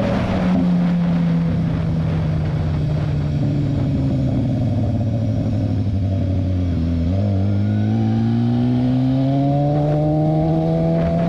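BMW S1000RR's inline-four engine running under the rider, its pitch sinking slowly as the bike eases off. About seven seconds in the pitch drops briefly, then climbs steadily as the bike accelerates.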